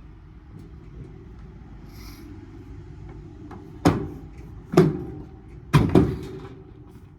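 Four sharp metal knocks, the last two close together, each with a short ring, from work on a scrapped air-conditioning unit.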